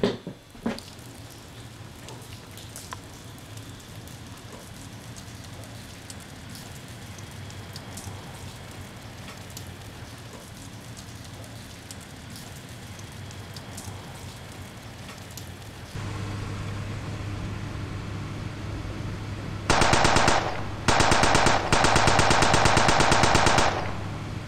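Three bursts of rapid automatic gunfire near the end, evenly spaced shots in quick succession over a low hum; before that, a long stretch of faint background noise.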